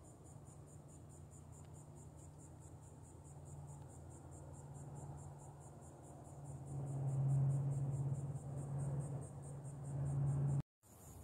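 Insects chirping in a steady, rapid high pulse, over a low steady hum that swells louder in the second half. The sound cuts out abruptly for an instant near the end.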